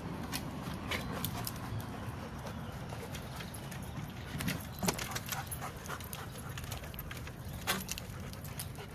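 Dogs' paws and claws tapping and scuffing on a wooden play platform: irregular sharp taps over a low steady background, the clearest about five seconds and nearly eight seconds in.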